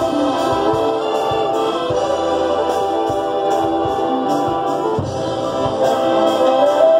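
High school marching band playing its field show: full sustained chords with a moving melody line, punctuated by drum and cymbal hits.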